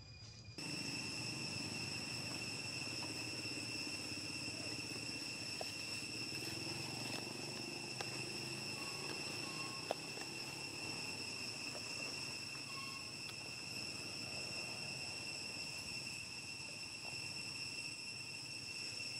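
Insects droning steadily in a continuous high-pitched ring that starts abruptly just after the start. A single sharp click comes about ten seconds in.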